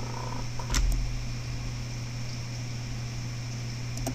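Steady low hum of background fan noise, with one sharp click about a second in and a couple of faint clicks near the end.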